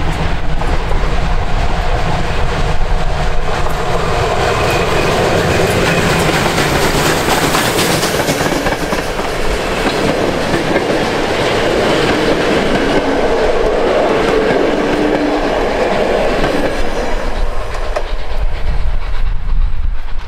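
Ol49 steam locomotive and its train of passenger coaches running past at close range, wheels clattering over the rail joints. The noise is fullest as the coaches roll by and dies away near the end as the train leaves.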